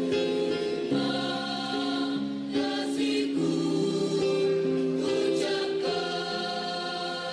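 Background music with long held chords, getting quieter near the end.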